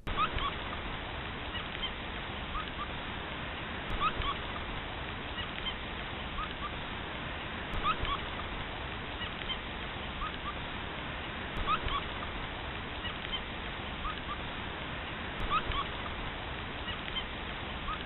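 Short, high squeaks in small clusters about every four seconds, which the uploader figures come from a rat held in a gray fox's mouth. They sound over a steady hiss of rain.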